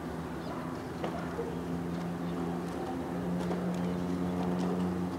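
A steady, low engine drone with a held pitch, growing a little louder partway through.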